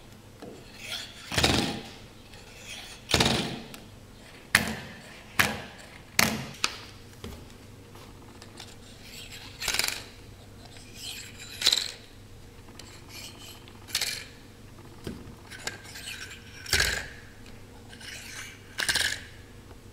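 Neodymium ring magnets clicking and clacking against each other and a metal rod as they are handled and snapped into place, a dozen or so irregular sharp clicks mixed with short scrapes and rubs.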